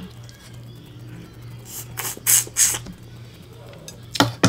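Close-up eating sounds of crab: a few loud wet sucking slurps about two seconds in as meat is pulled from a crab leg, then two or three sharp clacks of shell near the end.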